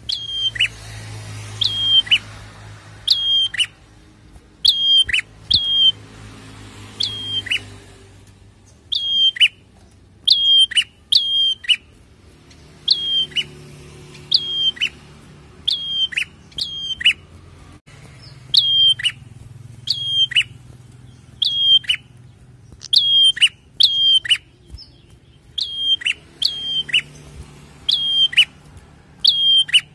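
Prenjak (prinia) singing: sharp, high chirps that slide down in pitch, given in quick pairs and triples about once a second, with short pauses now and then.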